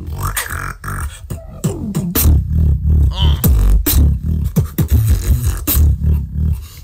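Solo vocal beatboxing: deep bass pulses under sharp snare- and click-like strikes, with gliding pitched vocal sweeps woven in, part of a competition wildcard routine.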